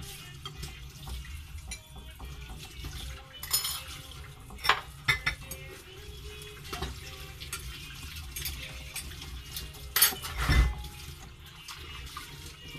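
Utensils clattering and scraping against a mixing bowl as banana pancake batter is mixed by hand, with scattered sharp clinks and a heavier knock about ten seconds in, over a steady low hum.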